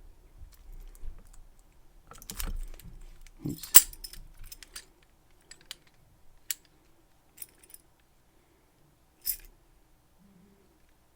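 Metal clicks and rattles of a key being worked and pulled from a Yuema 750 padlock: the careless key removal that leaves the core jammed so it can be tensioned. A cluster of clicks comes with one sharp clack about four seconds in, then a few separate clicks.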